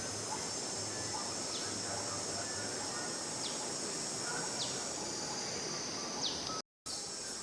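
Steady high-pitched insect chorus, likely crickets or cicadas, with four short falling chirps spaced a second or two apart; the sound cuts out briefly near the end.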